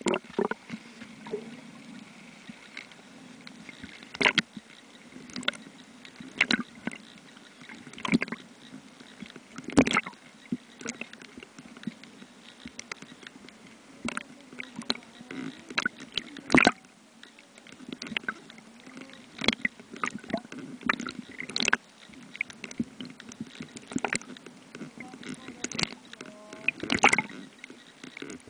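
Underwater sound picked up through a camera's waterproof housing: a low steady hum with irregular sharp clicks and knocks every second or two.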